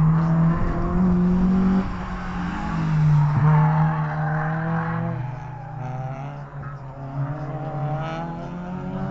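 A race car's engine revving hard through a corner, its pitch climbing and dropping in steps with the throttle. The engine grows fainter after about five seconds as the car pulls away.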